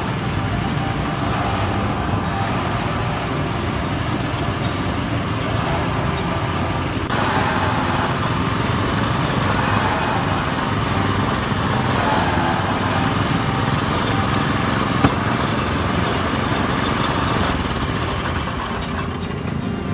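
Small petrol engine of a street sugarcane juice press running steadily, driving the steel rollers as cane stalks are fed through and crushed. It grows a little louder from about seven seconds in.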